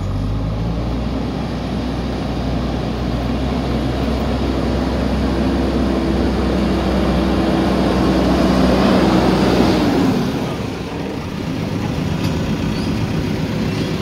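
JCB 3DX backhoe loader's diesel engine running under load as the machine drives and pushes soil with its front bucket. The engine note grows louder with a higher steady tone from about four seconds in, then eases back around ten seconds in.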